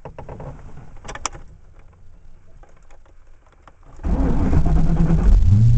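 A few faint clicks, then about four seconds in the 1995 Mustang GT's 5.0 (302) V8 is cranked over on the starter and fires from cold about a second later, settling into a steady low idle. It breathes through shorty headers and a MAC Prochamber cat-back exhaust.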